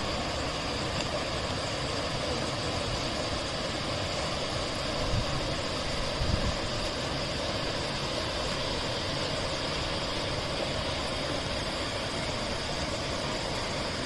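Waterfall rushing, a steady even roar of falling water, with a couple of brief low rumbles near the middle.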